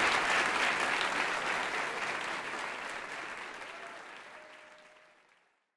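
Audience applause fading out steadily and dying away to silence just before the end.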